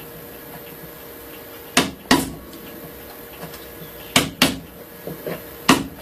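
Hand tools knocking on a wooden workpiece: five short, sharp knocks, two pairs and then a single one.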